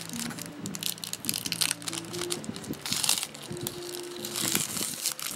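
Foil wrapper of a trading-card pack crinkling and crackling in the hands as it is torn open, with two louder bursts about three and four and a half seconds in. Background music plays underneath.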